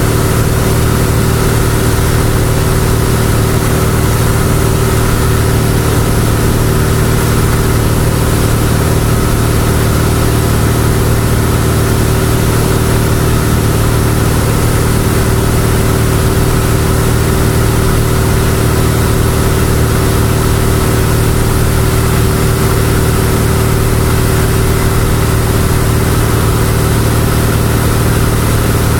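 Cessna 172's piston engine and propeller droning steadily at cruise power, heard from inside the cabin, with a steady low hum and rushing air noise.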